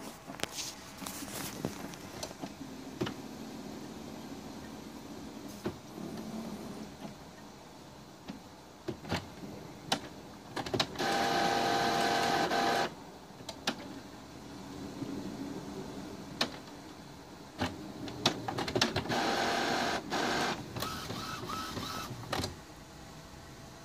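Epson WorkForce WF-2750 inkjet printer's mechanism running: scattered clicks and ticks, and two loud stretches of steady motor whirring, each about two seconds long, one near the middle and one later on.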